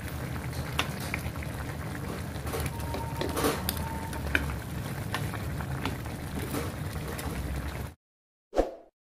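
Tilapia and tomatoes simmering in broth in a pan: steady bubbling with a low rumble and scattered pops. It cuts off about eight seconds in, and a single short loud hit follows.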